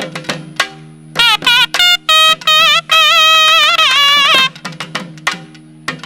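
Naiyandi melam folk ensemble playing: a nadaswaram, a double-reed pipe, plays a wavering, ornamented melody over a steady drone, with sharp thavil drum strokes throughout. The pipe drops out after about four and a half seconds, leaving the drums and the drone.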